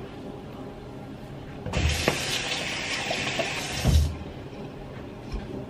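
Bathroom sink tap running for about two seconds, with a low knock as it starts and another as it stops. The water is run to rinse cleansing balm off the face.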